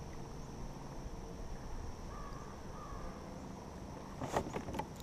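Quiet outdoor ambience on open water: a steady low wind rumble on the microphone, two faint bird calls around the middle, and a couple of short sharp noises near the end.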